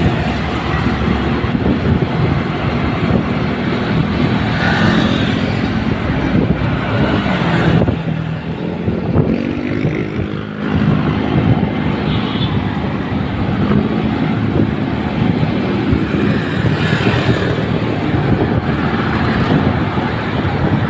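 Moving motorcycle heard from the pillion seat: a steady rush of wind and road noise over the microphone, with the motorcycle's engine note underneath, its pitch shifting a little near the middle.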